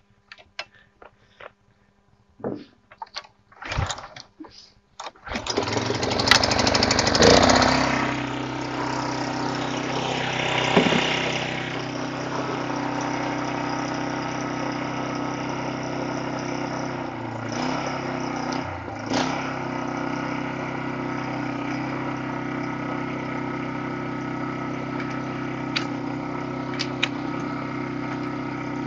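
Kyoritsu Wing Mower bund mower's small four-stroke engine being started after an engine oil change: a few short knocks, then the engine catches about five seconds in, briefly runs louder, and settles into a steady idle.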